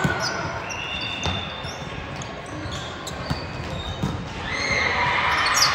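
Play on an indoor hard court: shoes squeaking in short high chirps and the knock of a bouncing ball, over echoing crowd voices that swell about four and a half seconds in.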